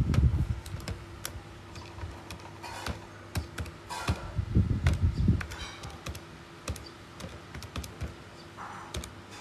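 Buttons of a Casio fx-570VN Plus scientific calculator being pressed one after another, a run of short irregular clicks as a calculation is keyed in. There are a few low thumps near the start and again about halfway through.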